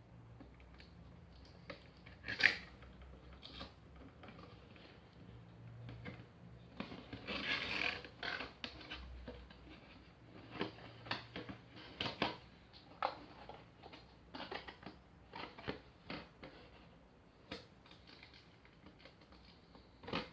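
Faint handling of a Nendoroid figure's box and packaging: scattered clicks and taps, with a sharp click about two and a half seconds in and a longer rustle about seven to eight seconds in.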